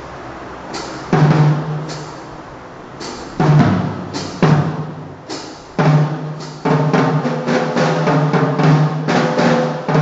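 Acoustic drum kit struck a few times, separate loud hits that leave the drums ringing, then played continuously from about two-thirds of the way in. Under it runs the steady whir of an electric fan.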